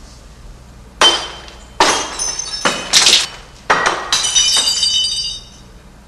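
Glasses smashing one after another, about five crashes in quick succession, the last ones trailing off in high tinkling and ringing shards.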